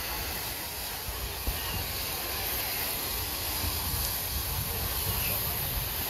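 Steady hiss of small surf breaking on a sandy beach, with wind rumbling on the microphone.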